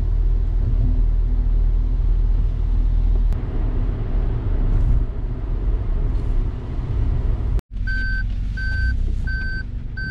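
Steady low road and engine noise inside a Suzuki Hustler's cabin on a wet expressway. After a brief break about three-quarters of the way in, a short high beep repeats about three times every two seconds: the car's reverse-gear warning beeper.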